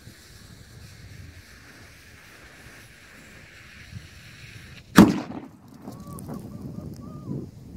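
A firework salute's fuse hissing steadily inside a pumpkin, then about five seconds in a single sharp, loud bang as the salute blows the pumpkin apart.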